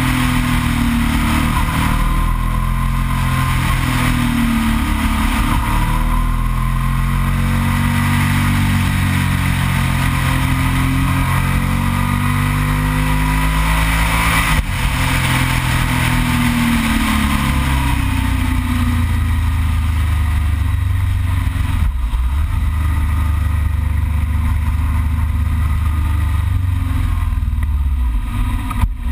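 Yamaha TDM 900's parallel-twin engine running under way, heard on board the bike, its pitch rising and falling with the throttle through the bends and holding steadier in the last ten seconds. Wind noise hisses over it throughout.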